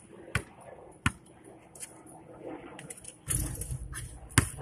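Basketball bouncing on an asphalt street, two sharp bounces about a second apart. Later a short stretch of low rumbling noise, then one more sharp hit near the end.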